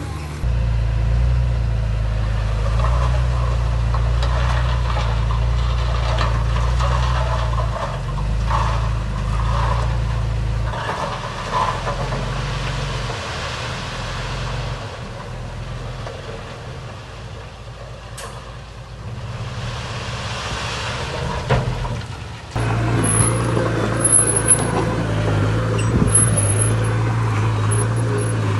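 Heavy diesel construction machinery running, with a deep steady engine note that drops away about halfway through and comes back suddenly and loudly near the end, with a few knocks on top.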